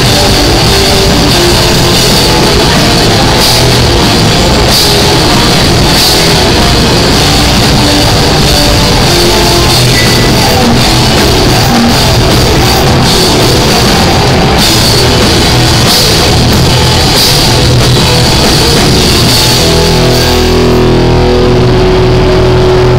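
Live heavy rock band playing very loud: distorted electric guitars over a drum kit with crashing cymbals. About twenty seconds in the cymbals drop out and held guitar notes ring on.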